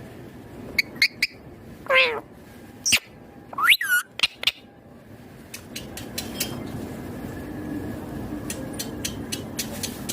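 Indian ringneck parakeet giving a handful of short, shrill calls, one falling steeply in pitch about two seconds in and another rising then dropping near the middle. The calls stop about halfway through, leaving a steady low background with faint clicks.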